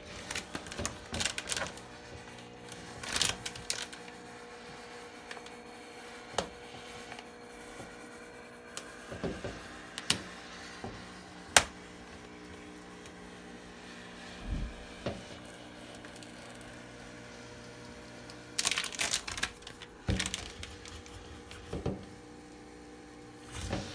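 Handheld garment steamer humming steadily as it is held against the window's contact paper. Over the hum, the paper crinkles and crackles on and off as it is peeled away from the glass, most busily near the end, with a sharp click about halfway.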